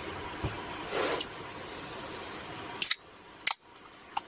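A few short, sharp clicks and light taps from small objects being handled at a table, over a steady background hiss that drops abruptly about three seconds in.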